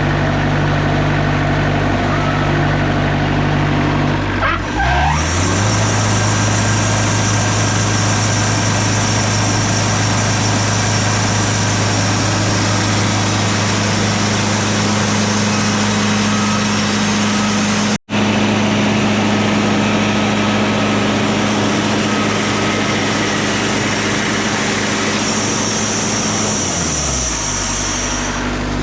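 Wood-Mizer LT40 Super Hydraulic bandsaw mill running: its engine runs steadily, then about four seconds in the pitch dips and settles as the band blade engages and saws through a spruce timber, a loud, steady sawing noise over the engine. Near the end the engine pitch drops and the blade noise stops as the cut finishes.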